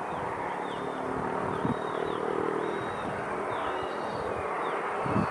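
Wind buffeting the microphone outdoors, with low thumps from gusts and small birds chirping repeatedly. For a couple of seconds in the middle there is a steady hum with several tones.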